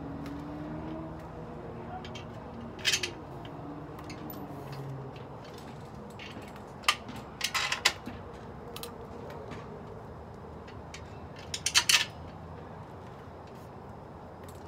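Small metal screws clinking against the metal base of a patio heater as they are set in place by hand around the foot of the pole: a few sharp clinks, in quick little clusters near the middle and again about two-thirds through, over a steady background hiss.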